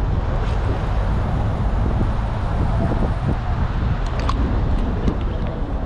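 Steady low rumble of wind on the microphone and road traffic. A few light clicks come about four seconds in as a spinning reel is handled.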